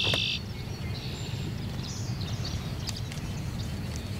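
Outdoor ambience: a steady low rumble with faint, scattered bird chirps, and a short buzzy call right at the start.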